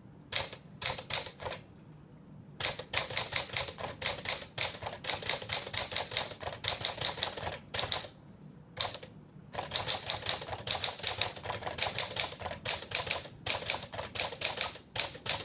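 1950s Smith Corona Sterling manual typewriter being typed on: runs of sharp keystroke clacks in bursts with short pauses between. Its margin bell rings once briefly near the end.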